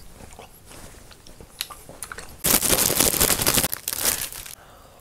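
Dense crackling and crinkling from a large croissant being handled, starting about two and a half seconds in and lasting about two seconds, after a few small ticks.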